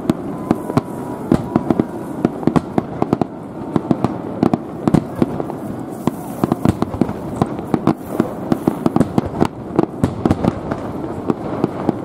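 Fireworks display: aerial shells bursting in a dense, irregular barrage of bangs and crackles, several a second, over a continuous rumble.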